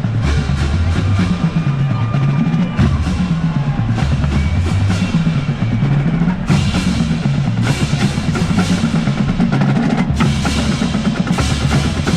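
Marching band drumline playing a cadence, with snare drums rolling over bass drums.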